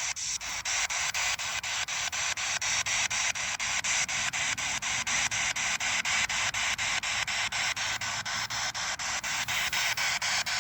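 Spirit box sweeping through radio frequencies: a steady hiss of static broken by regular clicks at about five a second.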